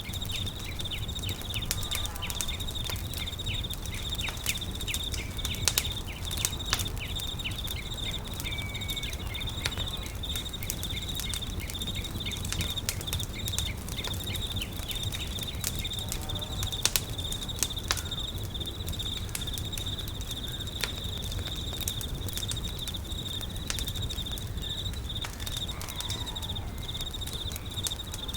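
Campfire crackling, with frequent sharp snaps and pops over a low steady rumble, set against a continuous high-pitched insect trill. A few short bird-like chirps come and go.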